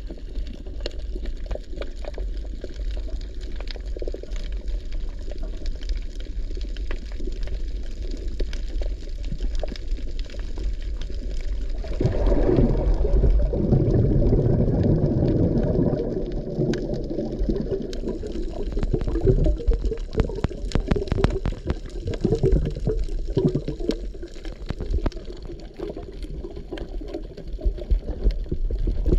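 Underwater water noise picked up through a camera's housing: a steady low rumble with scattered clicks. About twelve seconds in it swells into a louder, denser rush for several seconds, then comes and goes in uneven surges with more clicks.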